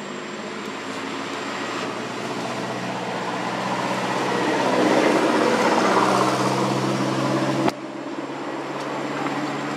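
Steady low engine hum of a passing motor vehicle, growing louder to a peak about five to six seconds in, then dropping off suddenly near the end while a quieter hum carries on.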